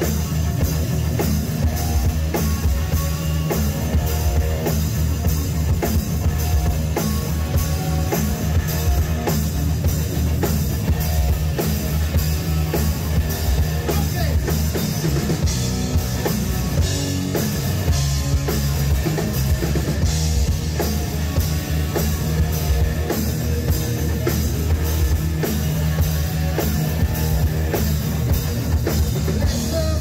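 Rock music with a steady drum-kit beat over a heavy bass line.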